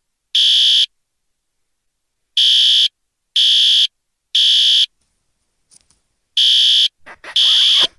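Fire alarm sounding its evacuation signal: loud, high-pitched beeps about half a second long, one a second in groups of three, with a pause of about a second and a half between groups (the temporal-three pattern).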